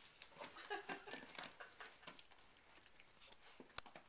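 A dog nosing and tearing at a gift-wrapped present: faint, scattered crackles and rustles of wrapping paper.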